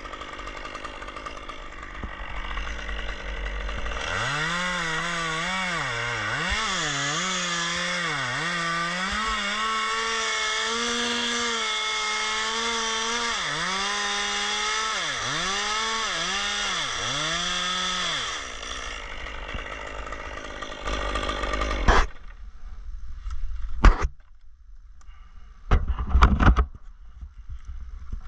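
Two-stroke chainsaw cutting dead fir, its engine pitch dipping and recovering again and again as the chain loads up in the cut. About 19 seconds in it drops back to idle, followed by a few sharp knocks near the end.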